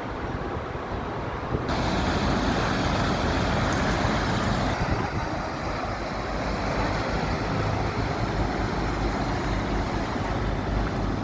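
Steady rumble and rushing noise of road traffic. About two seconds in, the noise turns suddenly brighter and louder.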